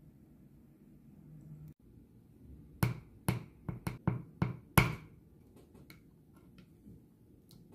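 Metal spoon tapping on and cracking the hard caramelised sugar crust of a crème brûlée: about seven sharp cracks in quick succession, starting about three seconds in, then a few fainter clicks as the spoon digs into the broken top.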